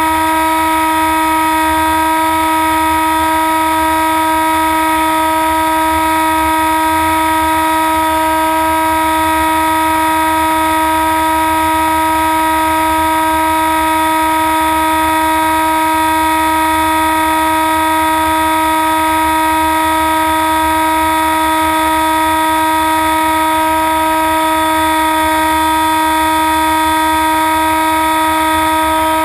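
A steady buzzing drone on the RC plane's onboard camera audio, holding one fixed pitch without any rise or fall.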